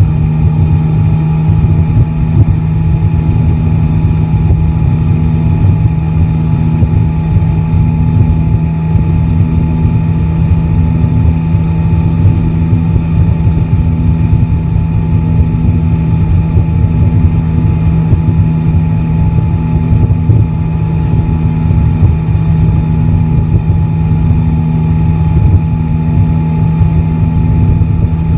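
Yamaha Tracer 9 GT's three-cylinder engine running steadily at one engine speed, with no revving. A low rumble is topped by a steady hum that pulses faintly about once a second.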